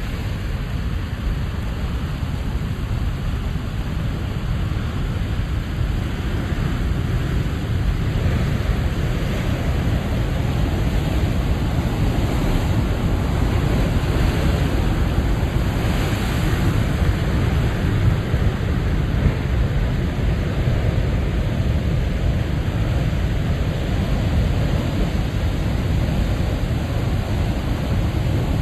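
Big ocean waves at high tide breaking against a rocky tide-pool shore: continuous surf noise, heaviest in the low end, swelling about a third of the way in and hissing loudest around the middle as a wave breaks and washes through.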